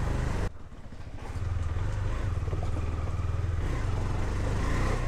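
KTM Duke 390's single-cylinder engine running steadily at low road speed, dipping briefly about half a second in.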